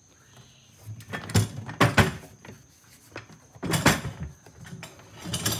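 Hard plastic knocks and clatter from handling a DeWALT ToughSystem DS450 rolling toolbox: several sharp knocks a second or two apart after a quiet first second.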